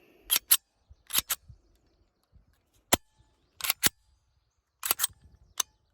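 Slide of a 3D-printed Glock 17L pistol being racked by hand over and over, about five strokes, each a pair of sharp clicks a fifth of a second apart. The slide and barrel are still binding a little, which the owner puts down to fresh paint that needs wearing in.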